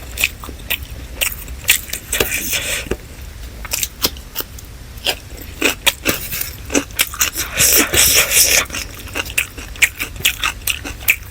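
Close-miked mouth sounds of eating chicken biryani and salad: biting, chewing and wet smacking in a rapid, irregular run of short clicks, with a longer crunchy, noisy stretch about three-quarters of the way through.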